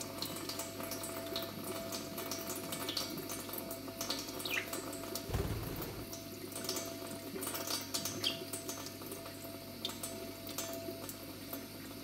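Kitchen tap running steadily, its stream splashing onto cupped hands and into a stainless-steel sink, with a brief low bump about halfway through.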